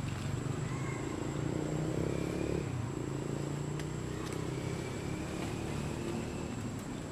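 Steady low drone of a motor engine running in the background, swelling briefly about two seconds in, with a faint thin high whine above it.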